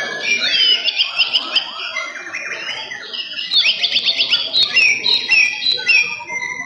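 White-rumped shama (murai batu) singing loud runs of fast, high repeated notes. The first run comes early and a second about three seconds in, followed by a few spaced notes.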